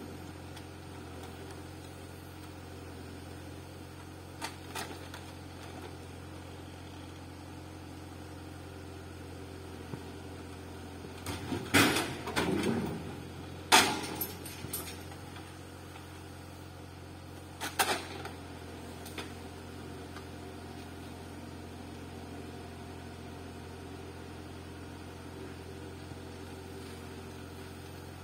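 Tractor engine running steadily, powering a forestry trailer's hydraulic log crane, with a few sudden heavy knocks and clunks as eucalyptus logs are set down in the trailer's steel bunk. The loudest knocks come in a cluster a little before halfway, with another about two-thirds of the way through.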